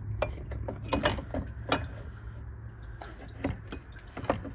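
Irregular metallic clicks and knocks as a water pump is worked loose and shifted about among engine-bay parts, over a steady low hum.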